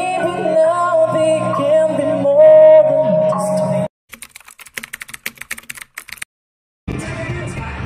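A man singing a cover song with music, cutting off abruptly about four seconds in. A rapid run of keyboard-typing clicks follows for about two seconds, then a moment of silence, then music and crowd noise near the end.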